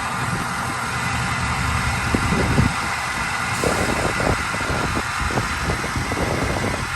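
Van engine idling steadily, with a few short knocks and handling noises over it.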